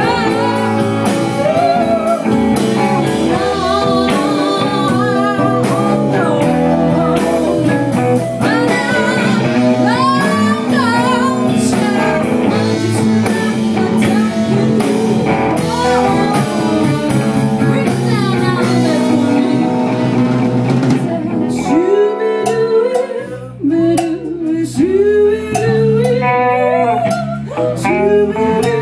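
Live blues band playing, with singing, guitar and drums. About two-thirds of the way through, the low end thins out and rising, bending notes stand out.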